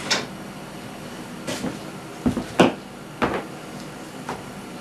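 Wooden rails being handled and fitted into the dados of a tool chest carcass: a handful of separate wooden knocks and clacks, the loudest about two and a half seconds in.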